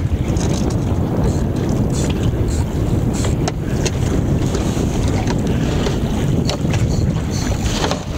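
Wind buffeting the microphone on an open boat at sea, a steady low rumble, with a few scattered sharp clicks.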